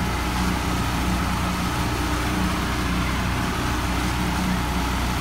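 Pontoon boat's outboard motor running steadily at cruising speed, a low even drone under a steady rush of wind and water.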